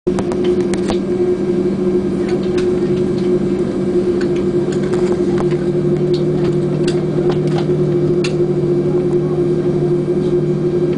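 Cabin noise inside an Airbus A330-300 moving on the ground: a steady engine hum with a few held low tones, one dropping in pitch about halfway through, and scattered light clicks and rattles.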